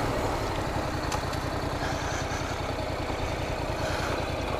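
Honda NC700X's parallel-twin engine running steadily at low revs as the motorcycle rolls slowly along a gravel road.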